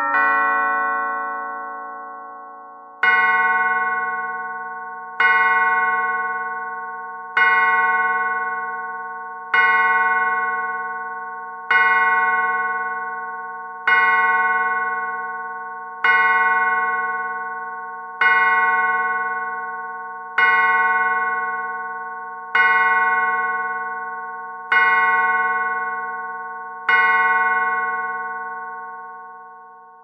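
Antique Warmink longcase clock striking the hour: the last notes of a quick chime tune ring out, then from about three seconds in come twelve identical strikes about two seconds apart, each ringing on and fading before the next.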